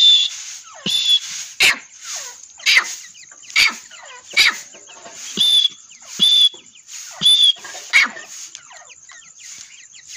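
Caged partridges calling: a sharp call about once a second, many ending in a short, high whistled note.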